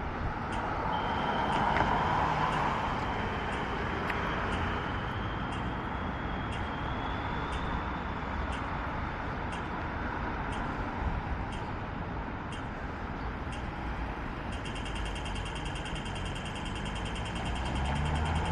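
Steady road traffic noise on a city street, with faint ticking about once a second. A faint high buzz joins about three-quarters of the way through.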